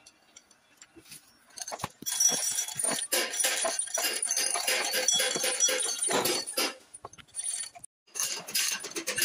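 Dense, rapid metallic clinking and rattling of a chain hoist's steel chain, starting about two seconds in and breaking off briefly near the end.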